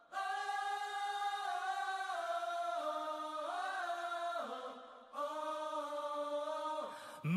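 Background music: a slow melody of long held notes with gentle slides in pitch, breaking off briefly about halfway through.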